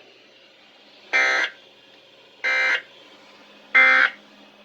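Three short bursts of SAME digital data tones on Environment Canada's weather radio, about a second and a bit apart: the end-of-message signal that closes a weather alert bulletin.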